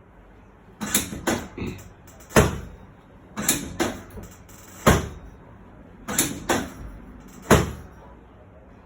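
Rhythmic percussive slaps and thuds: three quick lighter strikes followed by one heavy thud, the pattern repeated three times at an even pace.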